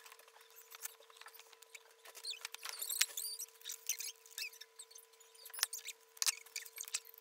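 Fast-forwarded audio of paper crafting: quick taps and rustles of paper pieces being handled, with high, squeaky chirps, strongest a few seconds in, and the low end missing.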